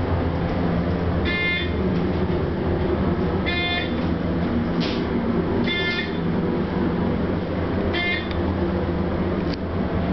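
ThyssenKrupp traction elevator car running downward with a steady low rumble. A short electronic beep sounds about every two seconds, four times, as the car passes each floor.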